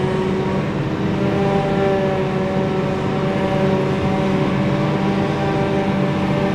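Claas Jaguar forage harvester chopping grass alongside, together with the towing tractor's engine, heard from inside the tractor cab. It makes an even, unchanging machine hum with several steady tones held throughout.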